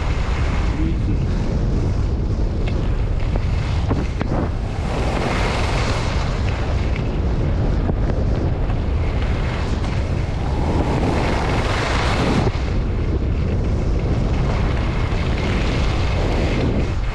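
Wind buffeting the microphone during a downhill ski run, a steady low rumble, with the hiss of skis on the snow swelling and fading with the turns.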